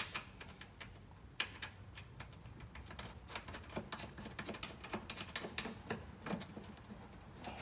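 Faint, irregular clicks and taps of small metal parts being handled as a bolt is pressed into the hinge bracket of a John Deere mower deck's discharge chute.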